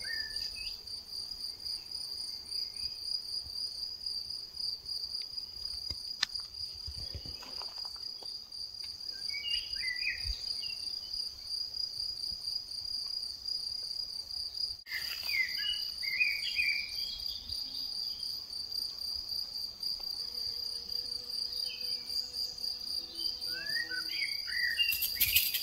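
Grassland insects chirring in a steady, high, continuous trill, with a few short bird chirps over it.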